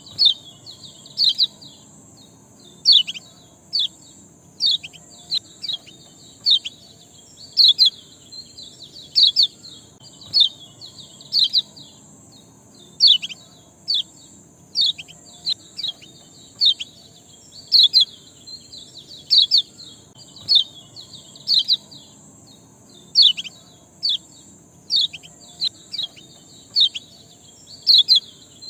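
A ciak bird chirping in quick clusters of two or three sharp, falling chirps every second or two. This is a lure recording played to set caged birds singing. A steady high hiss runs underneath.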